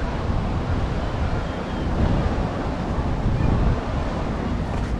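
Wind buffeting the microphone in gusts, over a steady wash of surf breaking on the beach below.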